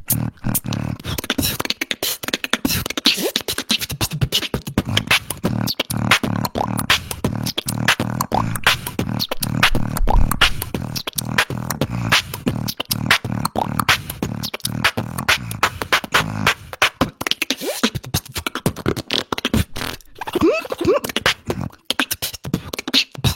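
A human beatboxer performing a battle round: a fast run of vocal kick, snare and click sounds over a sustained low bass tone. A few gliding pitched vocal effects come near the end.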